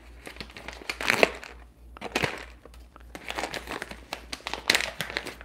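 Crinkling of a coffee-bean bag as it is handled and opened: a run of irregular rustles and crackles, loudest about a second in and again near the end.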